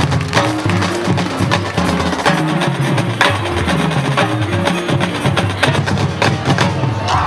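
Marching band percussion section playing a percussion-only passage: drumline drums and front-ensemble mallet instruments strike a fast, dense rhythm over a moving low pitched line, with the wind instruments silent.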